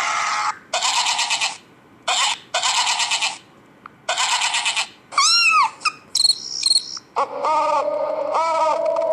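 Short animal sound-effect clips played one after another from a phone app, each stopping abruptly: several bursts of dense, high, trilling chirps like insects, a brief rising-and-falling whistle, then a held pitched animal call near the end.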